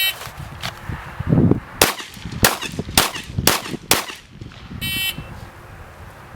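A shot timer beeps, then a Glock 17 Gen 2 9mm pistol fires five quick shots about half a second apart, starting a little under two seconds in. A second beep about five seconds after the first marks the end of the five-second par time.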